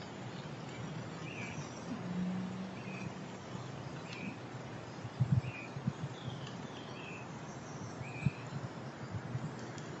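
Short bird chirps repeating about once a second over a steady outdoor hiss, with a few dull knocks around the middle and one more near the end.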